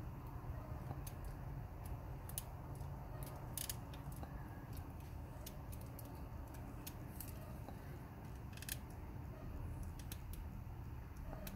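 Scattered light clicks and rattles from an RC crawler chassis being flexed by hand, its suspension links, rod ends and axles shifting as they articulate. A steady low hum runs underneath.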